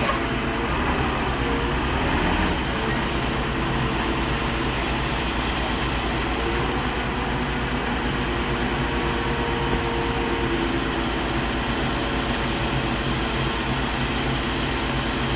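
A concrete mixer truck's engine running steadily, with a constant low hum under an even mechanical noise.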